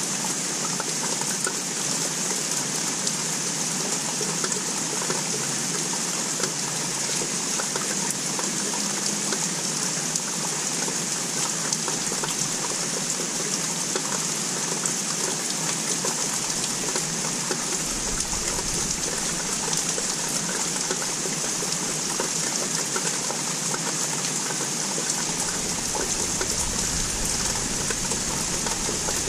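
Steady rain falling, a constant hiss of many small drops. A faint low rumble comes and goes in the second half.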